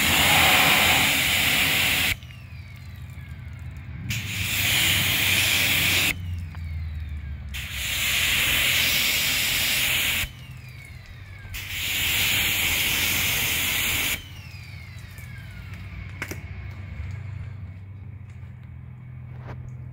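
Pressure washer spray hitting a truck's tailgate and taillight, in four bursts of two to three seconds each with short pauses between. The spray stops about 14 seconds in, and a single sharp click follows a couple of seconds later.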